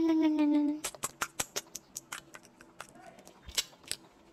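A small dog licking and smacking at food on a plate: irregular wet clicks, a few a second. It opens with a short falling hummed "mmm" from a person's voice.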